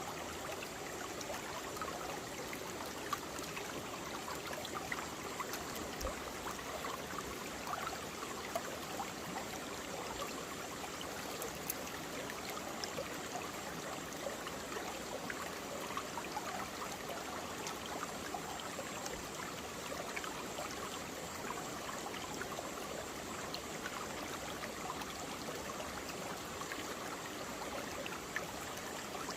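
Mountain valley stream flowing steadily over rocks, a continuous rush of water with small splashes and gurgles.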